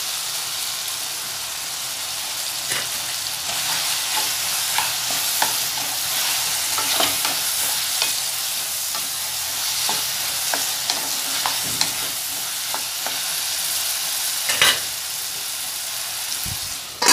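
Shallots, garlic, green chillies and tomatoes with fresh ginger-garlic paste frying in oil in a metal kadai: a steady sizzle, with the stirring utensil clicking and scraping against the pan at irregular moments and one louder knock near the end.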